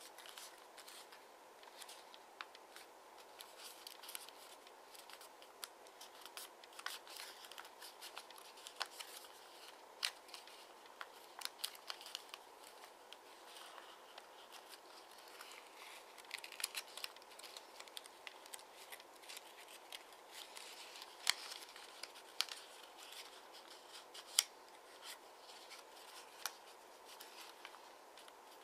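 Double-sided origami paper being folded and creased by hand: soft rustling with frequent small crackles and sharp clicks as the folds are pressed flat.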